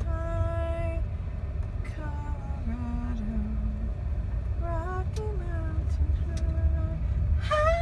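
Steady low road rumble of a car's interior while driving. Over it, a high voice sings short held and gliding notes at intervals, with the strongest near the end.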